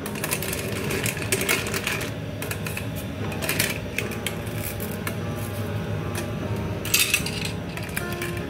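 Clam shells clicking and clinking against a metal skimmer and a stainless saucepan as opened clams are scooped out of boiling water, over the bubbling of the boil.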